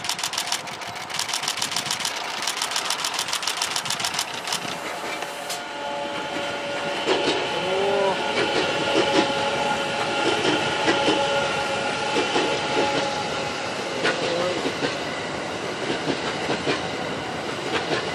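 The JR East E001 "Train Suite Shiki-shima" cruise train passes close by at speed. Its wheels click over the rail joints under a steady electric motor whine, and the sound grows louder as the cars go by. Before it arrives, a fast run of clicks comes in short bursts during the first few seconds.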